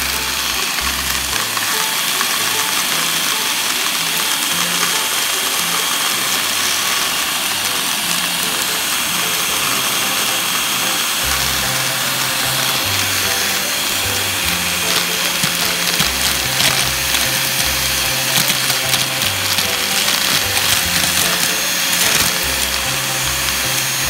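Black+Decker handheld vacuum running steadily, a high motor whine over rushing air, with Lego bricks clattering as they are sucked into its clear dust bowl. Background music with a bass line comes back in about eleven seconds in.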